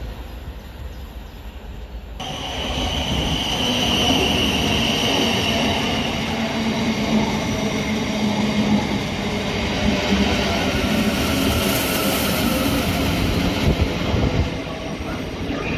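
South Western Railway electric multiple unit rolling past close by along the platform, with wheel-on-rail rumble and clatter and a steady electric whine. The sound swells about two seconds in as the train draws level.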